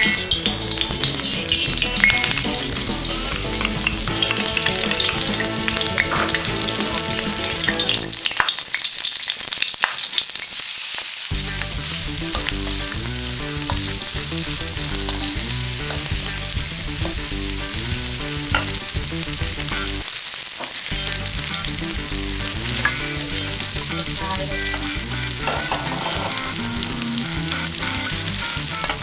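Hot oil sizzling in a wok during a stir-fry, with a spatula stirring and scraping against the pan in short clicks.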